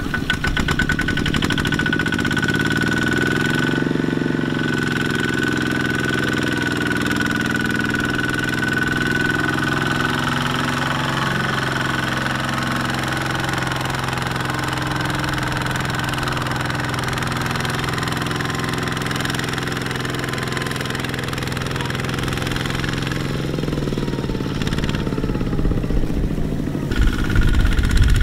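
Kubota walking tractor's single-cylinder diesel engine running hard as the machine churns in deep mud, its pitch shifting a couple of times with the throttle.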